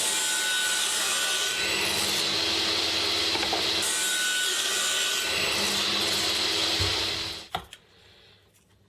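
A power tool runs steadily with a constant hum, then shuts off about seven seconds in, followed by a single click.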